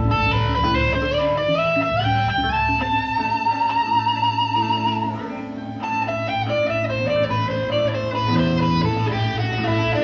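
Live rock band playing: an electric guitar lead climbs step by step to a long held note with vibrato, then runs on in shorter phrases over bass, drums and keyboards.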